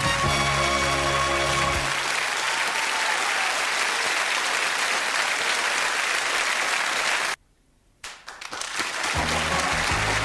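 Studio audience applauding over the sitcom's theme music. The music fades out about two seconds in, leaving the clapping alone. The sound cuts out for about half a second near seven seconds in, then the applause and the theme music start again near the end.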